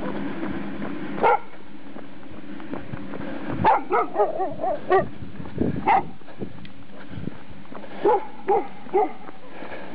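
A dog barking repeatedly. There is a single bark about a second in, a quick flurry of barks a few seconds later, and then a steady series of evenly spaced barks near the end.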